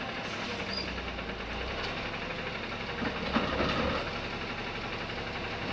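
Garbage truck's engine idling steadily, with a short clatter of plastic wheeled trash carts being knocked and rolled about three seconds in.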